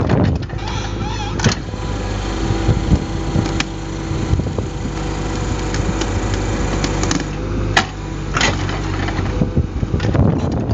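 A 3-ton excavator's diesel engine runs steadily, working a cone splitter. A few sharp cracks or knocks come through, about one and a half seconds in and twice near eight seconds, with rougher, louder noise near the end.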